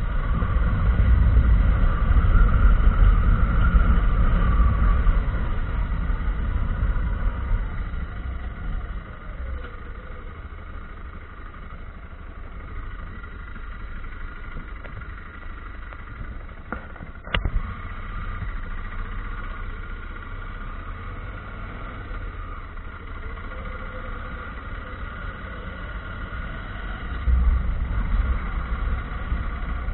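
Motorcycle engine running under way, heard from a camera mounted on the bike, with a low rumble and wind noise. It is loudest for the first several seconds, then eases off, with a single sharp click about halfway through and a short swell near the end as the bike slows into a parking area.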